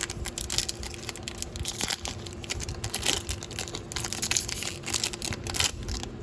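A 2020-21 Panini Chronicles trading-card pack wrapper being torn open and crinkled by hand, an irregular run of crackles and rips throughout.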